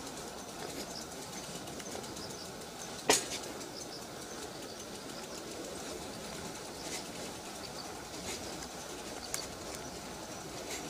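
Steady outdoor background noise with faint, scattered high chirps, likely small birds, and one sharp click about three seconds in, followed by a few fainter ticks.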